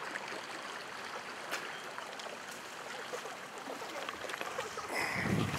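Shallow river current running steadily over the stream bed. A hooked trout splashes at the surface near a wading angler, with a louder, low splashing rush near the end.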